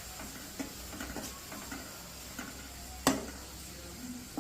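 A spoon stirring in a pan, with scattered clinks and scrapes against the metal and one louder knock about three seconds in, over a faint sizzle. The chilli powder is being mixed into the hot oil and spices.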